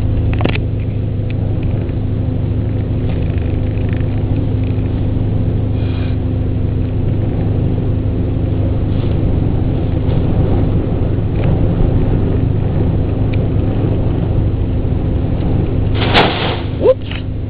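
Car engine idling with a steady low hum and rumble. A short, loud rush of noise breaks in about sixteen seconds in.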